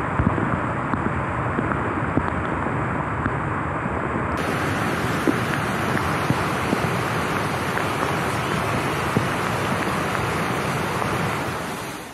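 Fast floodwater rushing through a city street, a steady noisy wash of water, with rain mixed in. About four seconds in the sound turns brighter and hissier, and it fades near the end.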